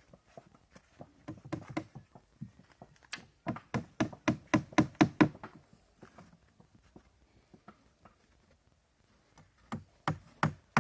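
Rapid hammer blows on wood, about four or five a second, in a run of roughly ten strikes in the middle; a second run starts near the end, with lighter scattered taps between.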